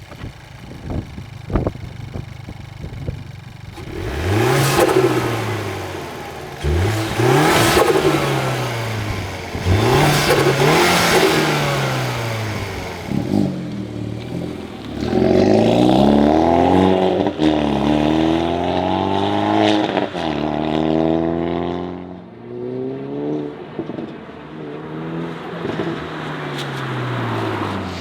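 Hyundai Veloster N's turbocharged 2.0-litre four-cylinder, fitted with an AEM cold air intake, revving repeatedly. The pitch climbs and drops back again and again. The revs get louder from about four seconds in.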